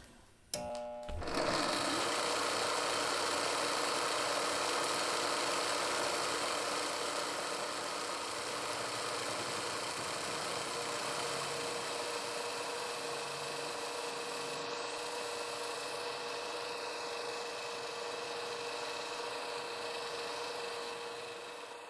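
Homemade lathe starting up about a second in, then running steadily: its electric motor and chain-and-gear drive whirring as the chuck spins and the tool-steel cutter takes its first test cut on a metal rod.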